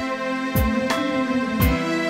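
Instrumental background music: sustained held tones over a deep, regular beat.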